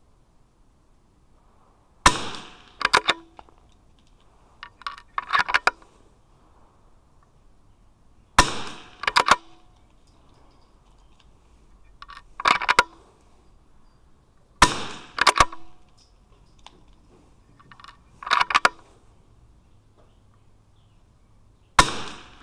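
.22 LR bolt-action target rifle fired four times, about six seconds apart, each sharp crack followed by clicks of the bolt being worked to load the next round.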